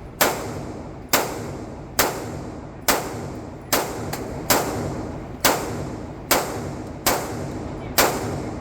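Gunshots fired in a steady string, about ten shots a little under a second apart, each followed by an echoing tail.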